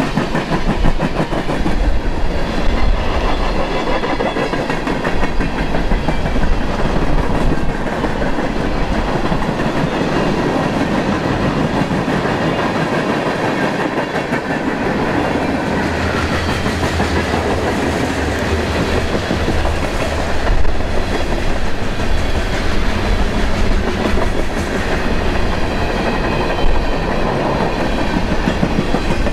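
Freight train of covered hopper cars rolling steadily past, a continuous rumble with steel wheels clicking over the rail joints.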